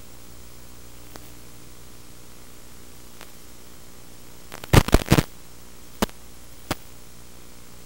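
Steady static hiss with a faint low hum from the audio channel of an analog FPV video link. It is broken about five seconds in by a quick cluster of loud sharp crackles, then two single clicks.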